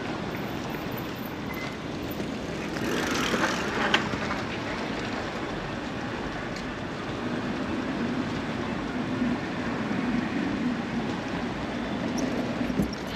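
Steady city street traffic noise heard from a moving bicycle. A brief swell of hissing comes about three seconds in, with a short knock just after it, and a low hum grows in during the second half.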